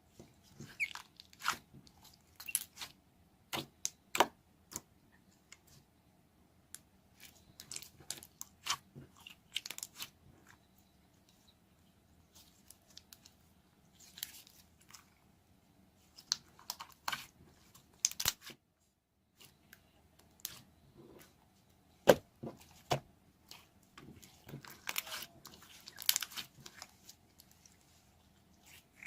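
Irregular close-up clicks and crackles in scattered clusters, with a short break about two-thirds of the way through.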